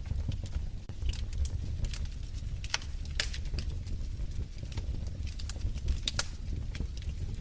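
Wood fire in a fireplace crackling: irregular sharp pops and snaps, several louder ones mid-way, over a low steady rumble of the burning.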